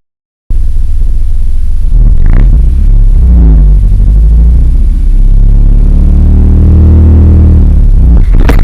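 Manual car's engine revving as it pulls away from a standstill in a learner's hill start, the engine note rising twice over a heavy low rumble. The pull-away is gentle, with no stall. The sound starts after half a second of silence.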